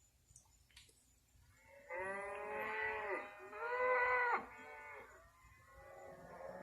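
Moo can toy mooing, as the test sound for one surround channel: two pitch-bending moos back to back about two seconds in, and another starting near the end.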